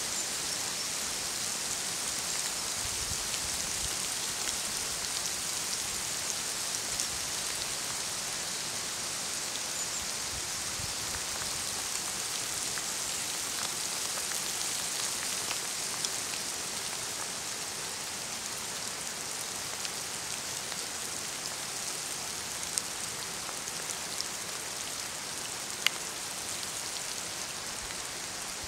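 Steady hiss of falling rain, with a few sharp ticks of single drops landing close by.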